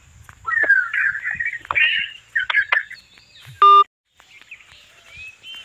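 Birds chirping and calling, with falling glides and a few sharp clicks, for the first three seconds. A short, loud electronic beep comes a little after three and a half seconds and cuts to a moment of silence, after which faint bird calls return.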